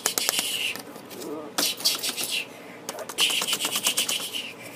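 A child making hissing, crackling mouth sound effects with rapid clicks for a toy-dinosaur battle, in three bursts of about a second each.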